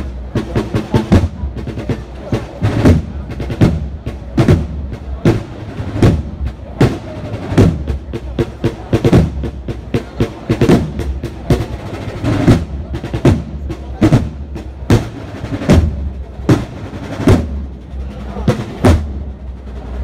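Marching band drums playing a slow procession march: snare drum rolls over a steady beat of heavy strokes, a little more than one a second.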